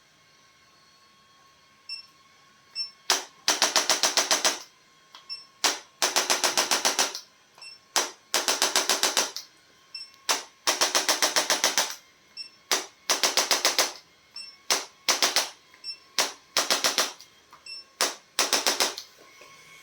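Handheld percussive adjusting instrument firing rapid, evenly spaced taps in bursts of up to about a second, roughly a dozen taps a second, with short pauses and single taps between bursts.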